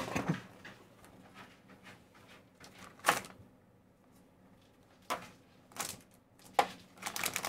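Handling noise as kit parts and packaging are unpacked: a few sharp clicks and taps, the loudest about three seconds in, with more near the end.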